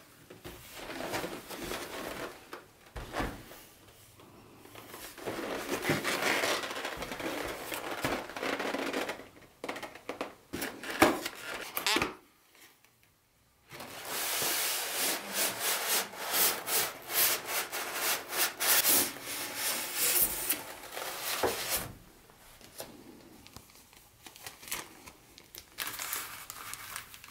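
Cardboard packaging handled and slid: a box lid lifted off and an inner cardboard sleeve pushed open, giving irregular bursts of scraping and rubbing with a few sharp knocks. There is a short pause just after the middle, and the loudest, longest stretch of sliding follows it.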